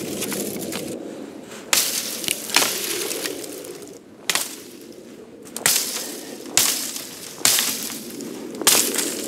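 A mini parang from the Anika workshop chopping through woody shrub stems: seven sharp cracking strikes at irregular intervals of about a second. Steady rustling runs between the strikes.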